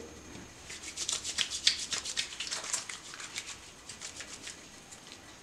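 Wet hands rubbing a bar of homemade herbal soap into a lather: a quick run of soft rubbing strokes that starts about a second in and dies away after about four and a half seconds.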